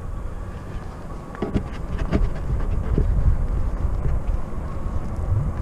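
RadRover electric fat-tire bike riding along a paved street: wind rumble on the microphone and tyre noise, with a faint steady whine from the rear hub motor. A few light knocks come between about one and a half and three seconds in.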